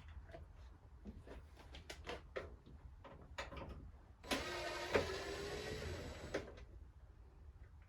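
Scattered clicks and knocks of parts being handled, then a small electric motor runs for about two seconds and cuts off abruptly.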